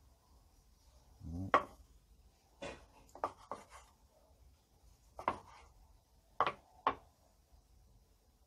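Large kitchen knife slicing raw beef on a wooden cutting board. The blade knocks the board sharply about seven times, at uneven intervals.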